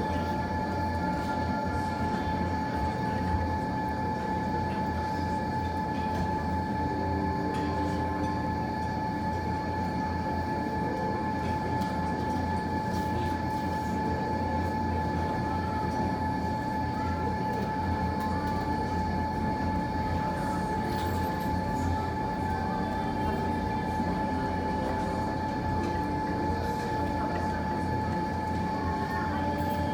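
A steady mechanical hum with a constant whine held at one pitch, and a few faint crackles from a fireplace fire now and then.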